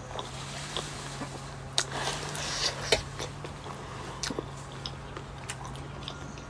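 Close-up eating sounds of someone biting and chewing pork momos: scattered wet mouth smacks and clicks over a steady low hum.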